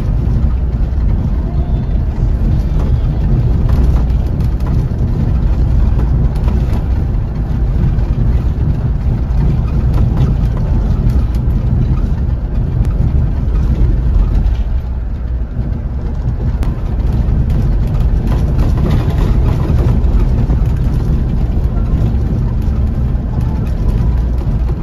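Touring bus on the move: a steady low engine drone mixed with road noise, holding an even level throughout.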